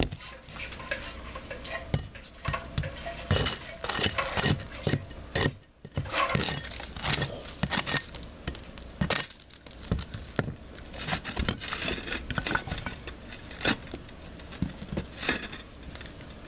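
Steel flat bar scraping and jabbing at a stripped tile-roof deck, with irregular metallic clinks and scrapes as it knocks against broken concrete tile pieces and old battens.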